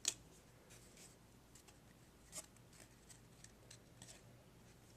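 Faint handling of trading cards: a sharp click just after the start, another about two and a half seconds in, and light scattered ticks and rubbing as cards are slid and flipped.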